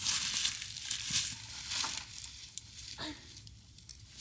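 Footsteps crunching and rustling through dry leaf litter and dead grass, a series of uneven steps that die down near the end.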